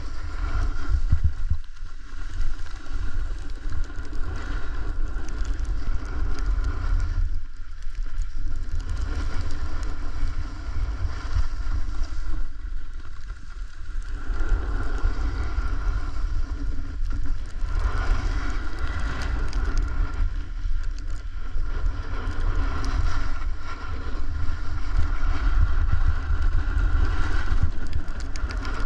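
Wind buffeting the microphone in a low rumble while a snowboard slides and scrapes over snow at speed, the scraping easing off briefly several times.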